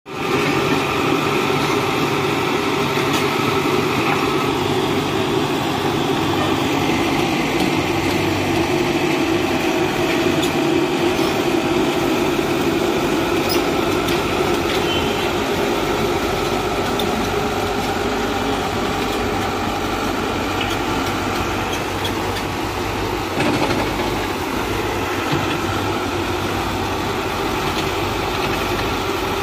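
Komatsu PC71 hydraulic excavator's diesel engine running steadily under load while the machine pushes and levels soil with its dozer blade and bucket, with a few faint knocks from the working gear.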